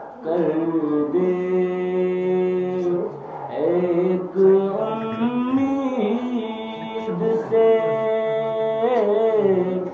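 A man's unaccompanied voice chanting a naat, an Islamic devotional song, in long held notes with sliding, ornamented turns and short breaks for breath.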